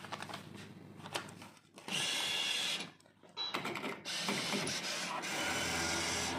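Cirsa 'Piratas del Caribe' slot machine's mechanism clicking rapidly, then running with a steady mechanical whirr from about two seconds in, broken briefly near three seconds.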